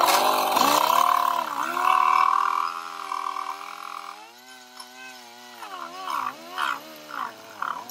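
A person's voice making long, drawn-out sounds with slowly wavering pitch, like a hum or a mock groan. The voice grows quieter and more broken toward the end.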